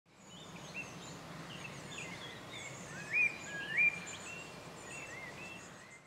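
Birds singing and calling, many short chirps and whistles, over a faint steady background hiss. Two louder rising whistled notes come about half a second apart, a little past three seconds in.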